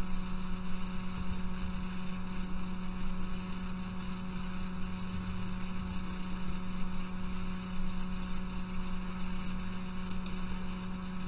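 Steady electrical hum: a strong low drone with a row of fainter higher tones above it, over a low background rumble.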